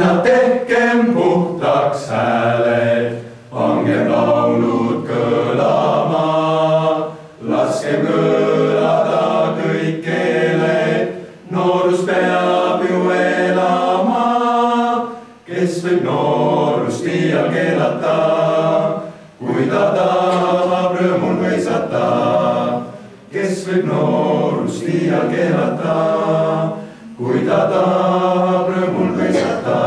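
A boys' vocal ensemble singing a cappella, in sung phrases of a few seconds each with short breaks for breath between them.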